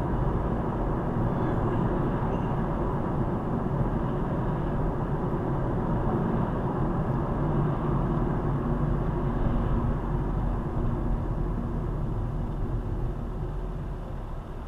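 Steady road and engine noise of a moving car heard from inside the cabin, a low rumble of tyres on asphalt that grows quieter near the end.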